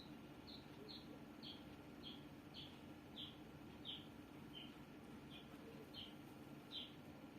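A small bird chirping faintly and repeatedly, short high downward-slurred notes about two a second, over a faint steady hum.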